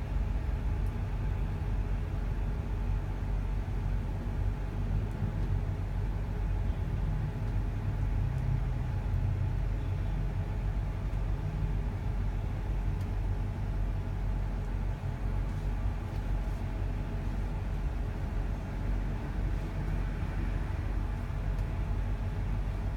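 Steady low rumbling hum of running machinery that holds unchanged throughout, with faint steady tones above it.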